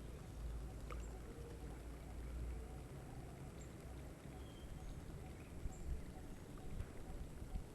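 Outdoor ambience: a steady low rumble, heavier in the first half, with a few faint short high chirps and small clicks toward the end.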